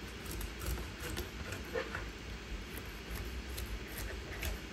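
Knife cutting along the spine of a triggerfish on a cutting board: faint, irregular small clicks and scrapes as the blade works through the fish.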